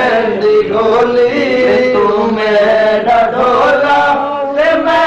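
A man singing a Sufi kalam in a chant-like style, holding long wavering melodic notes between lines of the verse.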